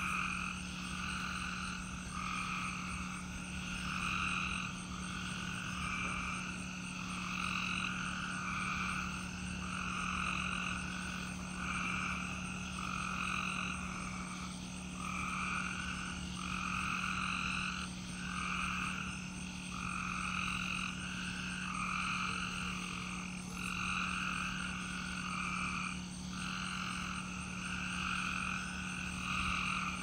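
A dense night chorus of spring peepers, with calls overlapping and coming and going in waves. A steady high cricket trill and a steady low hum run underneath.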